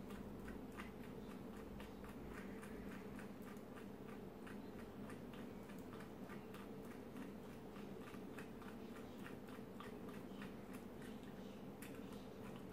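Small Phillips screwdriver turned by hand in a screw, making a run of faint clicks, about three or four a second, over a low steady hum.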